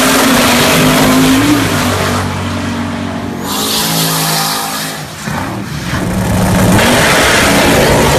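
Drag-race car engines at full throttle, accelerating hard down the strip, the pitch climbing and then dropping at gear changes; the sound dips and changes character about five seconds in and climbs again near the end.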